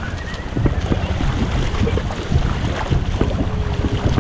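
Shallow water lapping and sloshing against a waterproof-housed action camera held at the surface, with wind buffeting the microphone: a steady low rumble broken by many small splashes.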